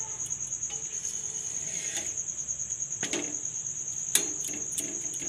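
A spatula knocks and scrapes a few times against an iron tawa while a naan cooks, starting about three seconds in. Under it, a steady high-pitched pulsing trill runs throughout.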